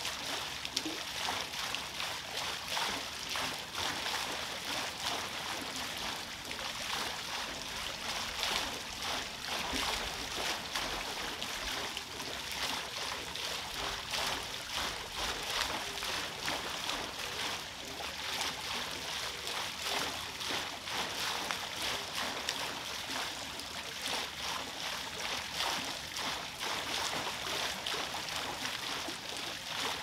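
Wooden overshot waterwheel turning under a stream of water: water pouring onto the paddles and splashing steadily into the pond below, a continuous bright rush of falling water.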